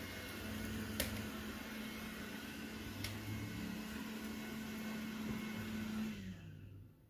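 Robot vacuum running on a shag rug, a steady motor hum with a held low tone and two sharp ticks. The motor winds down and stops about six and a half seconds in.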